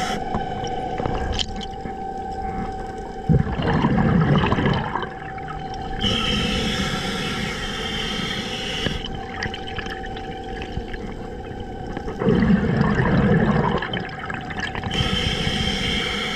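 Scuba diver breathing through a regulator underwater: hissing inhalations alternate with exhalations that come out as loud bursts of bubbles, twice, about four and twelve seconds in. A faint steady tone runs underneath.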